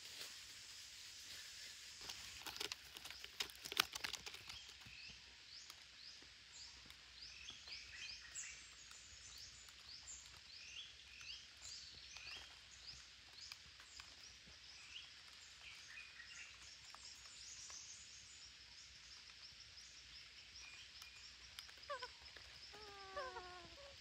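Faint forest ambience: a steady high hiss with scattered short bird chirps. A few sharp clicks or snaps come about three to four seconds in, and near the end a run of lower, falling whistled bird notes.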